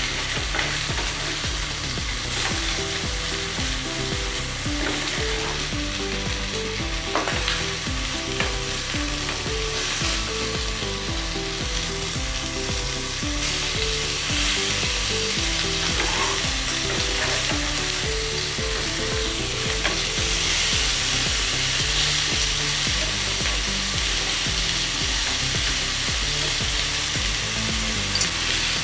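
Marinated tandoori chicken pieces sizzling in hot oil in a non-stick pan as they are charred, a steady frying hiss with a few light knocks as the pieces are turned.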